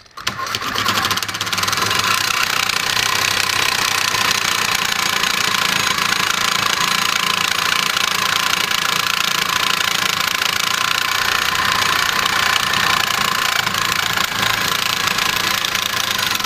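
Reciprocating saw with a Diablo carbide-tipped blade cutting through 3/4-inch steel bar. The saw starts right at the beginning and then runs steadily under load, the blade's teeth grinding against the steel in a loud, high-pitched, even rasp.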